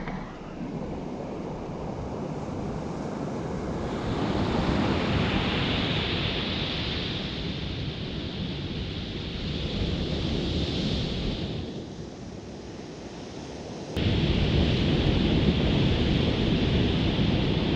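Ocean surf breaking and washing on a beach, mixed with wind buffeting the microphone. The wash swells and fades in long surges and turns suddenly louder about three-quarters of the way through.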